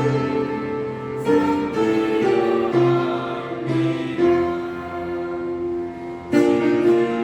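Instrumental introduction of a church hymn: piano with held string chords, changing chord every second or two, before any singing.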